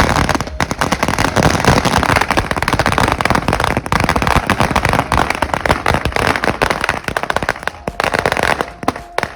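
Firecrackers going off in a dense, rapid string of pops and cracks, many per second, thinning out and dying away in the last second.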